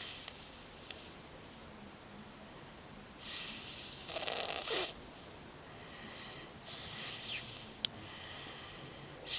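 A run of breathy, hissing snores, about five in all, the loudest about four to five seconds in. A single sharp click comes about eight seconds in.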